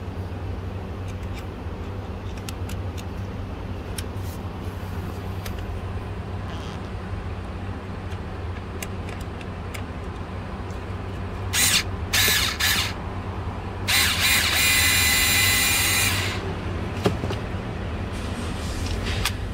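Several short whirs of a power drill, the last lasting about two seconds, over a steady low hum with scattered light clicks.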